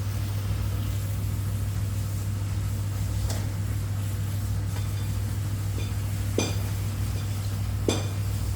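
A steady low hum, with three short, light clinks about three, six and a half, and eight seconds in.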